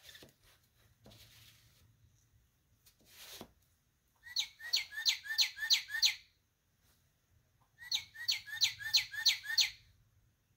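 A sound book's electronic module plays a recorded bird call through its small speaker: two runs of about seven quick chirps, each falling in pitch, a couple of seconds apart. Before them come a brief scrape or two of handling.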